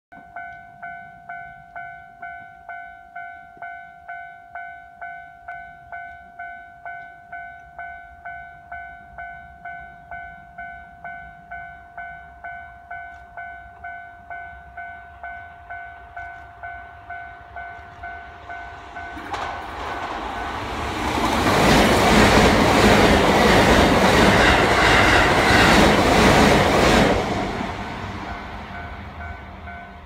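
Japanese level-crossing warning bell ringing steadily at about two dings a second as a Keisei AE-series electric express train approaches. The train then passes at speed, its wheels on the rails loud for about six seconds and drowning the bell, before fading away.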